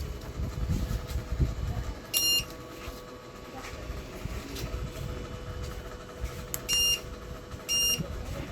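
Treadmill control-panel beeper giving three short, high-pitched beeps, one about two seconds in and two more near the end, as the repaired treadmill responds to its controls. A steady low hum runs underneath.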